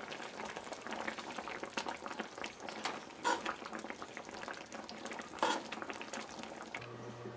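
Butterfish curry gravy still bubbling in a frying pan just after the stove is turned off: a steady crackle of small popping bubbles. A spoon ladles gravy over the fish, with two louder knocks a couple of seconds apart.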